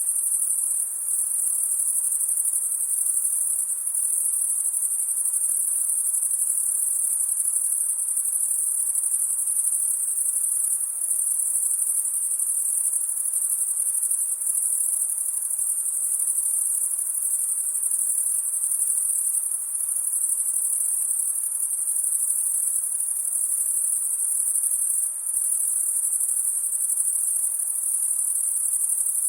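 A dense, steady chorus of crickets chirping on a summer night, high-pitched and unbroken, over a faint low background hum of night ambience.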